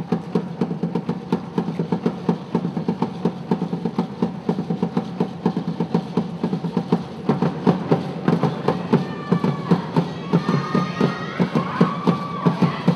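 Live ensemble of hand drums playing a fast, steady rhythm for Afro-Haitian dance. About seven or eight seconds in, voices join in singing over the drums.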